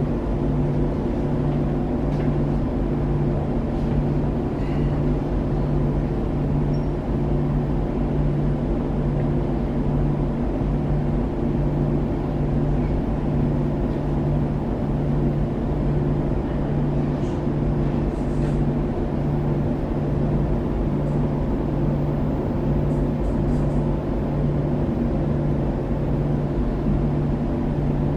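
Steady low hum inside a double-decker passenger train carriage arriving at a station, with a deep tone pulsing about once a second and a few faint clicks.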